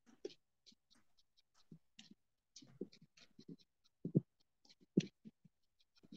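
Typing on a computer keyboard: an irregular run of quick key clicks, with a couple of louder, heavier keystrokes about four and five seconds in.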